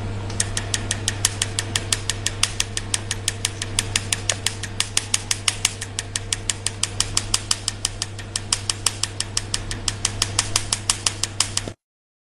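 Tattoo-removal laser firing a rapid, regular train of sharp snaps, roughly six a second, over a steady low hum from the machine. It stops abruptly near the end.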